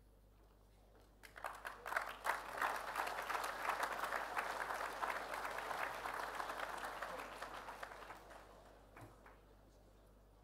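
Audience applause, starting about a second in and dying away after several seconds.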